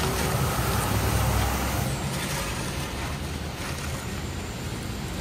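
Cardboard rustling and scraping as it is pushed by hand into a steel firebox, over a steady low rumble that is a little louder in the first second or so.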